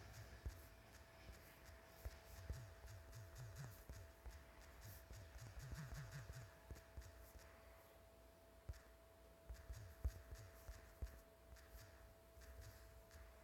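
Near silence with faint scratchy rubbing and scattered light clicks and low thumps, over a steady faint hum.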